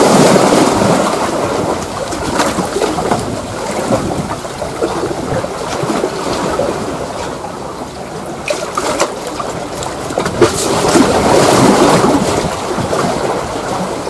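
Sea waves washing against shore rocks, a dense hiss that swells and eases over several seconds, loudest at the start and again near the end.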